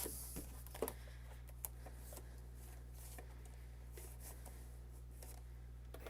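Faint handling of paper and tape: a few soft clicks and rustles, most of them in the first second, over a steady low electrical hum.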